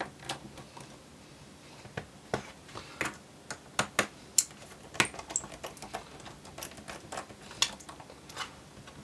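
Small Phillips screwdriver driving screws into a laptop's plastic base panel: light, irregular clicks and taps of the bit and hands on the screws and plastic.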